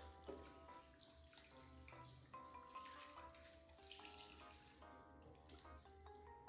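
Faint background music: a soft melody of short, stepping notes.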